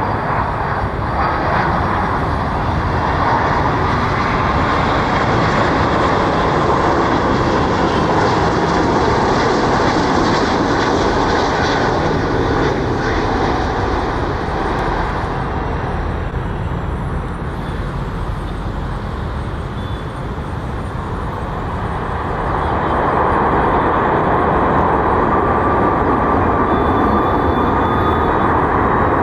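Jet aircraft engines running loudly, easing off about halfway through and swelling again after about 22 seconds.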